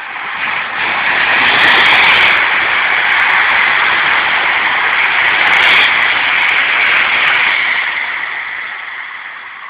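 London Midland electric multiple unit passing through the station at speed: a steady rushing of wheels on rail that swells and then fades away over the last couple of seconds.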